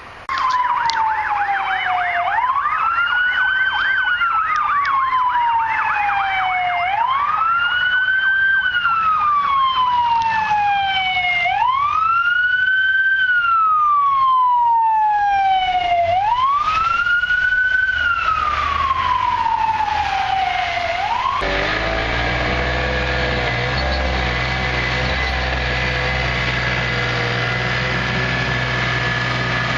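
Emergency vehicle siren on a slow wail, rising then gliding down about every four and a half seconds, with a fast yelp overlapping it for the first few seconds; it is responding to a house fire. About two-thirds through, it cuts off suddenly and a steady engine rumble with hiss takes over.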